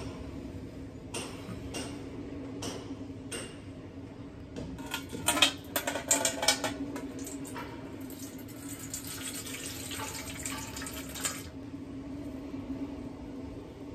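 A few short clinks, then liquid poured from a plastic bottle into a large stainless steel pot, splashing and trickling for about six seconds before it stops suddenly. A steady low hum underlies it.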